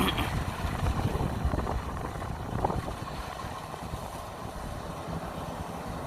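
Kubota DC-93 combine harvester's diesel engine running steadily as it cuts rice in a flooded paddy.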